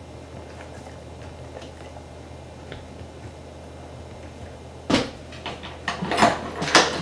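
Quiet room tone, then about five seconds in a sudden sharp knock followed by a run of clattering knocks and short rustling noises.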